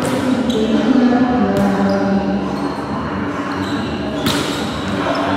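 Volleyball struck during a rally in a large gym hall: three sharp hits, the loudest near the end, with players' voices between them.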